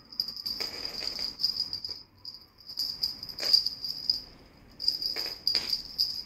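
Two small bells tied to a rope on the end of a riding crop, jingling in bursts as they are jiggled and dragged across the floor. There are a few sharp knocks, about three and a half seconds in and twice near the end.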